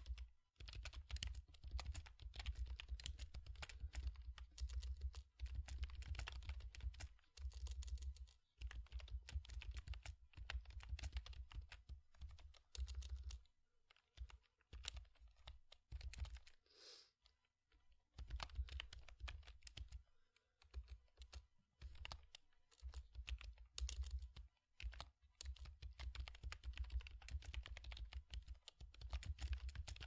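Fast typing on a computer keyboard, a quick run of key clicks that thins out to a few scattered taps for several seconds around the middle, then picks up again.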